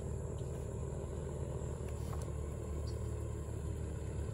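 Steady low drone of the Excalibur homebuilt light aircraft's engine and propeller in flight.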